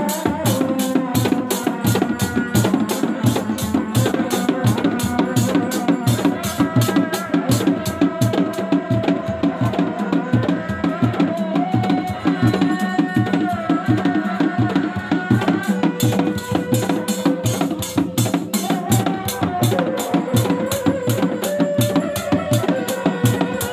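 Sundanese reak ensemble of dog-dog drums, frame drums and a larger barrel drum, beating a steady interlocking rhythm. A wavering, held melody line runs over the drumming.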